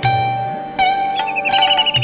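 Classical Indian raga music on a plucked string instrument: two notes struck about three-quarters of a second apart, each ringing on over a low drone, with a rapid high trill joining about halfway through.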